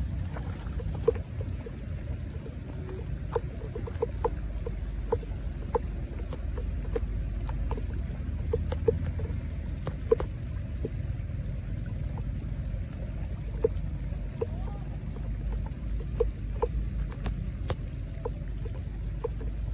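Heavy rain on a flooded road, with a steady low rumble underneath. Close drops plink irregularly, one or two a second.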